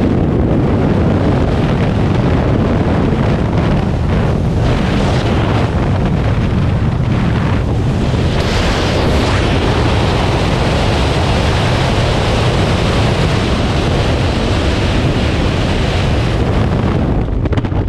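Freefall wind pounding on a helmet-mounted GoPro's microphone: a loud, steady rushing roar that eases slightly near the end.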